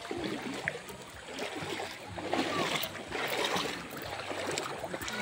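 Shallow water washing and trickling over coarse sand and shell grit at the water's edge, swelling to a louder wash about halfway through.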